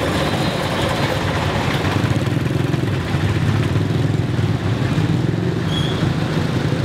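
Road traffic: vehicle engines running with a steady low rumble.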